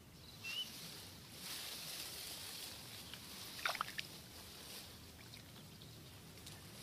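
Rice plants rustling and paddy water softly sloshing as weeds are pulled out by hand. A couple of sharp clicks come a little past the middle, and a single short bird chirp sounds near the start.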